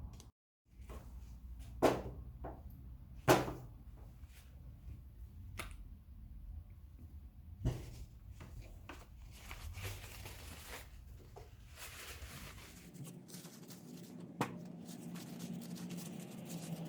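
Handling noises: a few sharp knocks and clicks, the loudest about two and three seconds in and near eight seconds, over a low steady hum.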